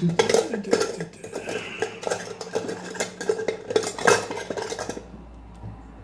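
Small metal lockpicking tools and padlock parts clinking and rattling against each other in quick, irregular clicks, stopping about five seconds in.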